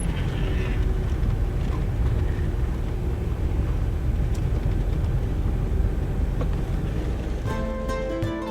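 Steady low rumble of a car driving on a paved road, heard from inside the car. Plucked-string music comes in near the end.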